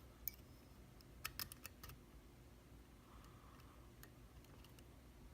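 Faint, small metallic clicks and ticks of a lock pick working the pins inside a Mul-T-Lock Classic cylinder. A cluster of clicks comes in the first two seconds, and a few more follow near the end.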